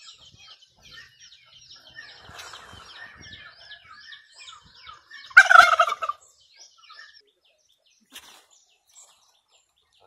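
Domestic tom turkey gobbling once, a loud gobble about five seconds in lasting under a second and falling slightly in pitch, over faint high chirping of small birds.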